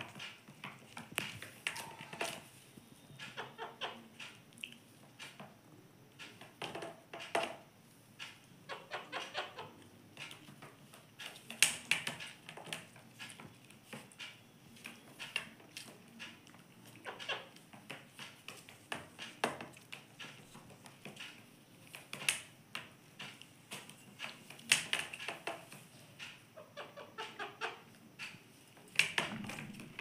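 Indian ringneck parakeet at a mirror: its beak tapping against the glass in irregular, sharp clicks, with short soft calls now and then.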